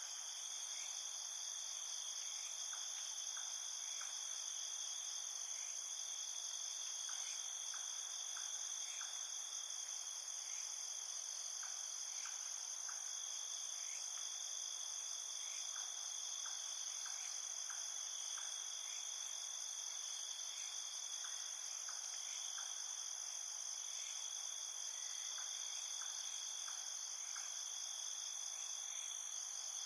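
Night insect chorus: crickets trilling steadily in several high pitches at once, with scattered short, irregular clicks lower down.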